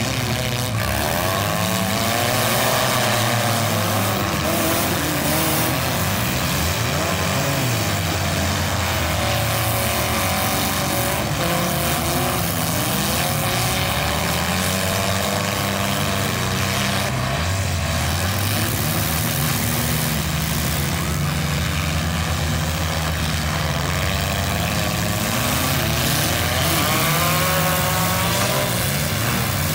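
Many demolition derby cars' engines running and revving together, their pitches rising and falling as the cars accelerate, reverse and ram one another, with occasional impacts of cars colliding.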